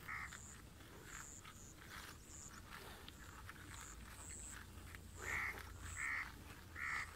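Water buffalo grazing, tearing and chewing grass in a series of faint crackly strokes. Birds call over it: short high chirps repeating throughout, and louder short calls once at the start and three times in the last two seconds.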